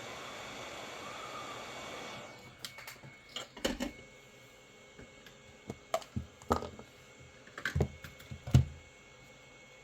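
A steady blowing hiss cuts off suddenly about two seconds in, followed by a string of irregular light clicks and taps of tools and parts handled on a workbench, the loudest near the end.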